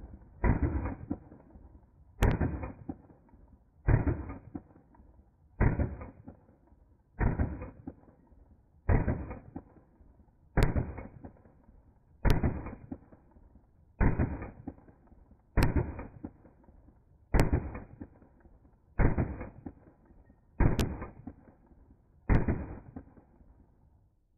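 Glock Gen 4 pistol firing a steady string of shots, heard slowed down in slow motion: each shot is a drawn-out boom with a long fading tail. There are fourteen, about one every 1.7 seconds.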